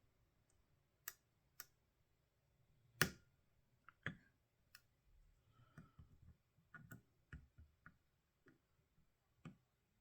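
Scattered sharp, faint clicks of a steel lock pick working the pin stack of an ERA six-pin padlock under light tension, about a dozen in all, the loudest about three seconds in.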